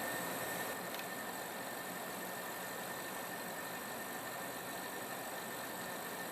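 Hardinge HLV-H tool room lathe running steadily under power, a constant whir with a thin high whine, and a faint click about a second in.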